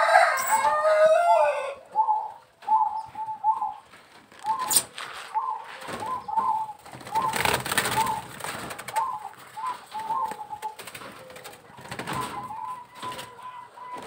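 Zebra doves cooing, a steady run of short repeated notes. A louder call falling in pitch at the start sounds like a rooster crowing. Bursts of rustling come through, loudest about seven to eight seconds in, as a dove is caught by hand.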